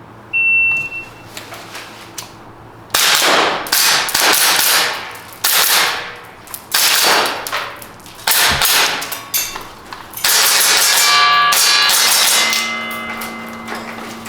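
Shot timer beeps once about half a second in. From about three seconds, a gas blowback airsoft pistol fires a string of shots, about a dozen, some pausing between groups, with BB hits ringing off steel targets.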